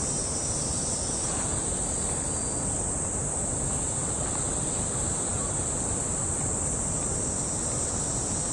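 Insects droning steadily in one high, unbroken band, over a low outdoor rumble.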